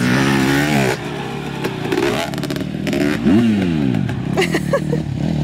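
Motocross dirt bike engines revving hard, the pitch climbing at the start; about three seconds in an engine's pitch dips and climbs again.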